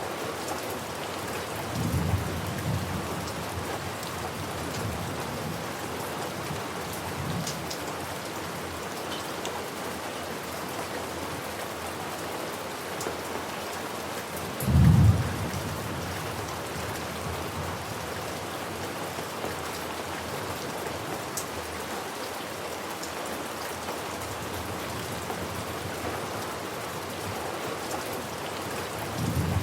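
Steady rain falling, with low thunder rumbles: one about two seconds in, a shorter, louder low thunderclap about fifteen seconds in, and another rumble near the end.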